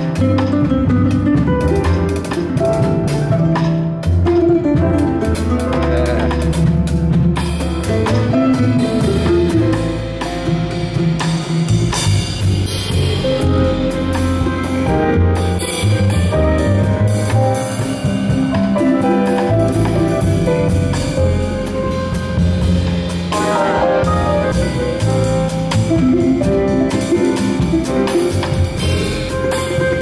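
A small jazz-choro ensemble playing a bolero: a ten-string bandolim plays plucked melody lines over a double bass and a drum kit.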